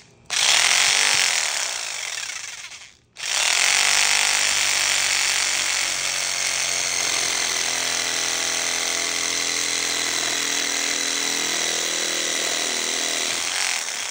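Handheld air body saw running with its reciprocating blade cutting a slot through a 3D-printed plastic riser. It runs about three seconds, stops briefly, then starts again and runs steadily until near the end.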